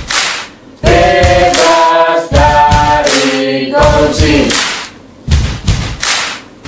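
A group of voices chanting and singing a yel-yel cheer in unison, in short sung phrases with brief breaks between them. A few sharp thumps fall between the lines.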